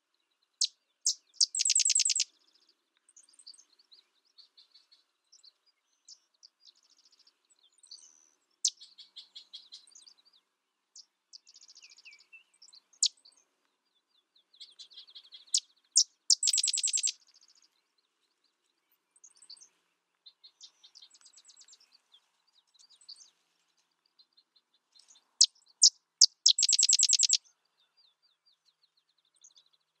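Sedge wren singing three songs, spaced about 15 and 10 seconds apart. Each song is a few sharp, separate chips followed by a rapid, even trill of about a second and a half. Fainter scattered chips and short chatters fill the gaps.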